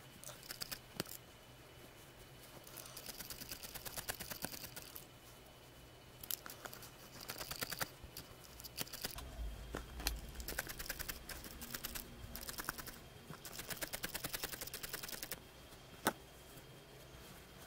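Felting needles stabbing rapidly into a wad of wool: quick runs of soft ticks, several a second, lasting a few seconds each with short pauses between. There is a single sharper click near the end.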